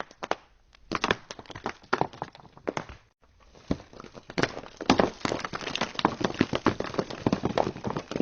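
Rocks sliding and tumbling, a dense, irregular clatter of stones knocking against each other. The clatter breaks off briefly about three seconds in, then resumes, busier and louder.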